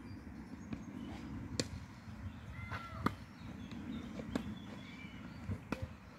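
Tennis balls being hit with rackets and bouncing on a hard court during a rally: a series of sharp pops, roughly one every second or so. Birds chirp faintly in between.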